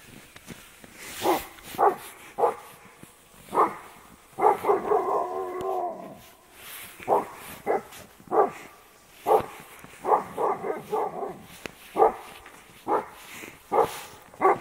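Alaskan malamute barking over and over, over a dozen short sharp barks spaced about half a second to a second apart, with one longer wavering howl-like call about five seconds in. The barking is the dog's alarm at horses, which it is afraid of.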